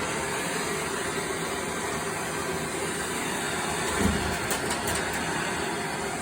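Handheld gas torch flame burning with a steady hiss while heating a copper pipe joint for soldering. A brief low knock about four seconds in.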